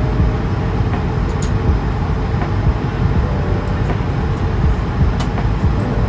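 Steady cabin noise of an Airbus A220-300 airliner in cruise: a constant low rumble of airflow and engines, with a few faint ticks.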